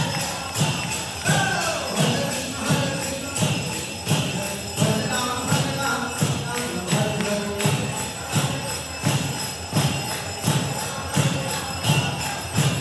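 Devotional kirtan music: a steady drum beat of about three strokes every two seconds, jingling hand cymbals, and voices singing a chant.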